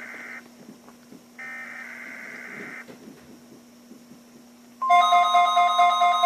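NOAA Weather Radio SAME header: the tail of one burst of buzzing digital data tones, then a second burst lasting about a second and a half. About five seconds in, a loud, steady alarm tone starts, with a lower tone pulsing about three times a second.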